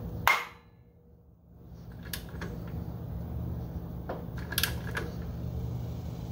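TAPP primary clutch on a 2021 Polaris RZR Pro XP popping as its bolt is torqued to 86 foot-pounds. A sharp pop comes about a quarter second in, then fainter pops and clicks about two and four seconds in. This is normal: the clutch seating itself on the shaft as the bolt draws it tight.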